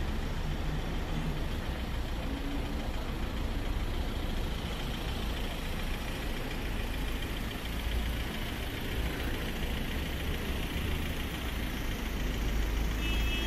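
Vehicle engine idling with a steady low rumble, over general outdoor street noise.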